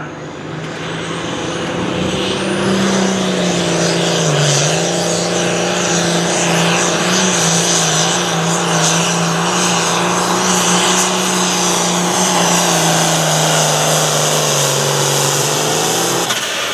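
Hot farm class pulling tractor's diesel engine held at full throttle through a pull, a high whine climbing over the first few seconds. The engine note sags briefly about four seconds in, then holds steady until it drops off near the end as the throttle comes back.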